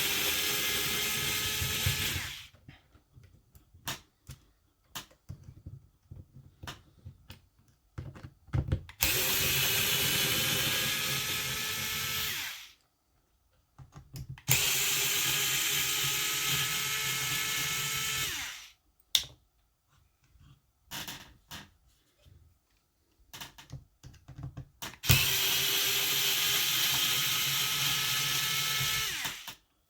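Small power screwdriver backing out the four screws of an RC car's diff cover, running four times for about four seconds each and winding down at the end of each run. Small clicks and taps of parts being handled fall between the runs.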